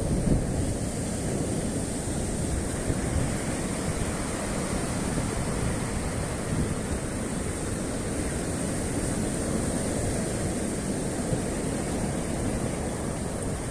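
Black Sea surf washing steadily on the shore, with wind rumbling on the microphone.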